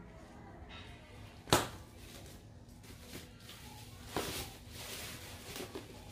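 Plastic bubble wrap and foil packaging crinkling and rustling as a parcel is unwrapped by hand, with one sharp snap about a second and a half in.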